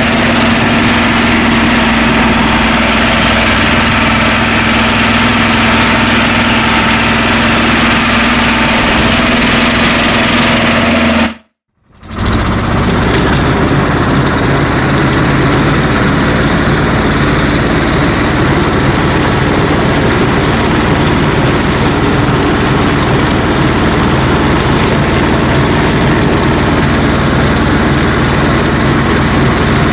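BJR Falcon 40 articulated tractor's engine running steadily, heard from the driver's seat, with a clear steady hum. The sound drops out briefly about 11 seconds in. It comes back noisier and rougher, with the rotovator working the soil.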